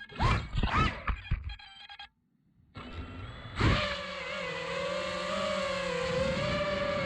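FPV racing quadcopter's four T-Motor F40 IV Pro brushless motors whining. It gives a few quick throttle blips that rise and fall in pitch, drops out briefly, then from about three and a half seconds runs as a steady high whine that drifts slightly in pitch.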